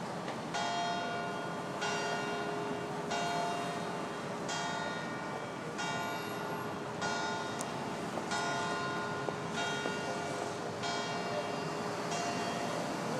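Church bell tolling slowly from a steeple, one stroke about every second and a quarter, each stroke ringing on into the next: a memorial toll.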